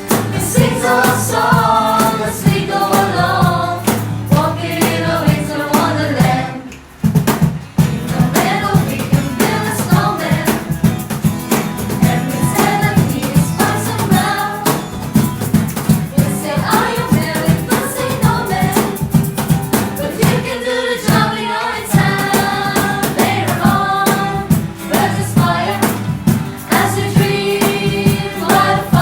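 Music: a song sung by several voices over a drum beat, with a brief break about seven seconds in.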